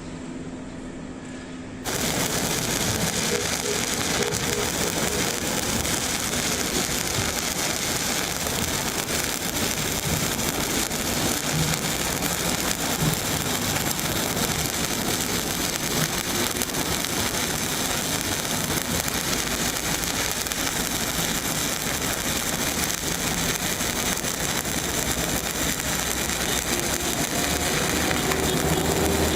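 Stick (arc) welding: the electrode arc strikes about two seconds in and then burns with a steady, dense crackle and sizzle.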